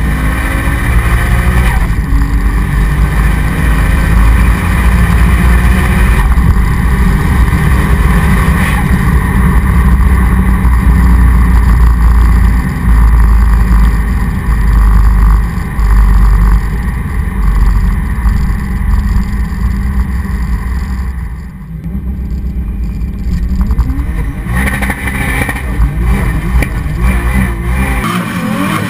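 Tuned Toyota Supra MKIV 3.0-litre straight-six with a big single Turbonetics T76 turbo, pulling hard with the revs climbing. The revs briefly drop about three-quarters of the way through, then climb again near the end. It is heard mostly from inside the cabin.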